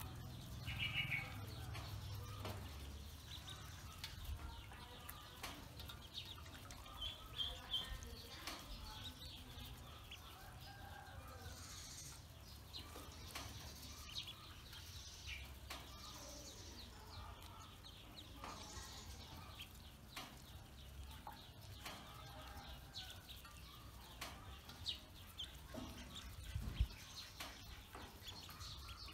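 Ducklings peeping on and off while they paddle and splash in a metal basin of shallow water. A single dull thump comes near the end.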